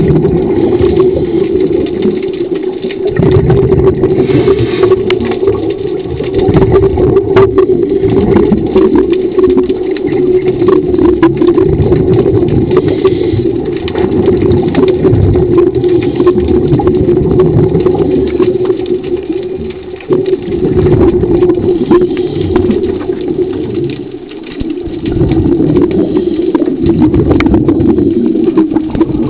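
Underwater dive scooter motor running with a steady hum, heard through the camera's waterproof housing, with an uneven low rumble of water beneath it.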